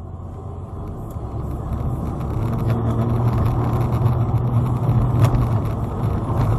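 Car engine and tyre road noise heard from inside the cabin on a dash cam: a steady low rumble that grows gradually louder.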